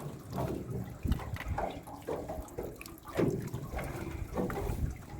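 Water splashing and sloshing in uneven bursts, roughly two a second.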